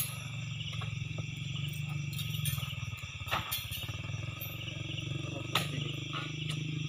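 An engine idles with a low, steady rumble throughout. A few sharp knocks come through, the loudest at the very start, then two more partway through, as oil palm fruit bunches are thrown up onto the truck's load.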